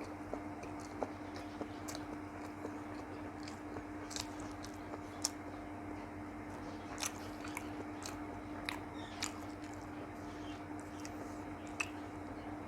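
Close-up eating sounds of a person chewing a meal of rice and curries: soft mouth clicks and smacks scattered through, over a steady low hum.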